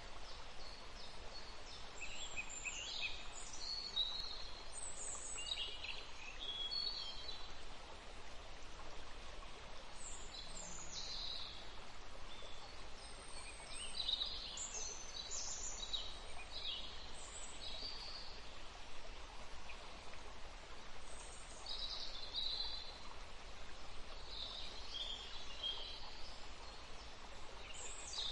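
Small birds chirping in short, scattered calls over a steady faint hiss.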